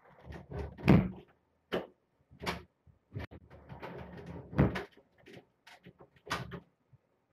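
A door being pushed and worked shut: a run of knocks and clunks, the loudest about a second in. A cable caught in the door keeps it from latching.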